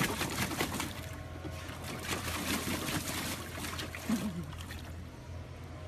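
A dog splashing in a shallow plastic kiddie pool, churning the water with its legs. There are quick, dense splashes for about the first second, then steadier sloshing and trickling water.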